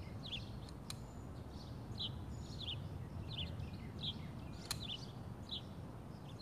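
A small bird chirping over and over, short falling chirps about two or three a second, over a steady low outdoor rumble. Two sharp clicks, one about a second in and one just before five seconds.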